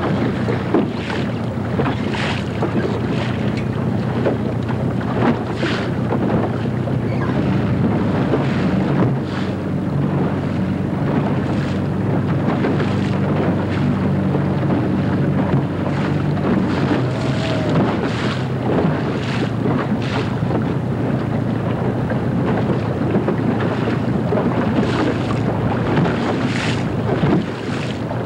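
Wind buffeting the microphone aboard a boat on choppy lake water, with short rushes of wind and splashing now and then over a low steady hum.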